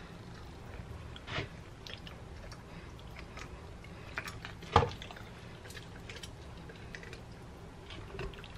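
Wet, squishy handling of a raw, oiled whole chicken as a metal rotisserie spit is worked through it. Scattered light clicks run through, with a sharper tap about a second and a half in and the loudest near five seconds in.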